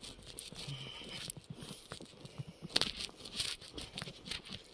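Uneven crackling and rustling close to the microphone, a scatter of short clicks with no steady rhythm, from movement in falling snow.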